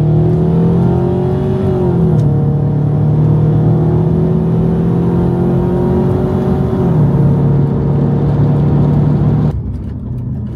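Subaru Impreza WRX STI's turbocharged flat-four engine pulling hard through a full custom exhaust, its note climbing steadily and dropping twice as the automatic gearbox upshifts, about two and about seven seconds in. Near the end the throttle is lifted and the note falls away.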